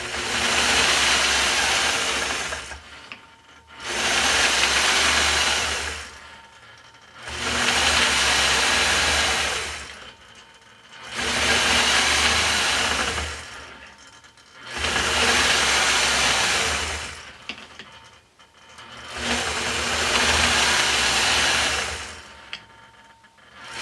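Gammill longarm quilting machine stitching in six runs of about three seconds each, stopping briefly between them as it is guided around a circle ruler to sew each petal.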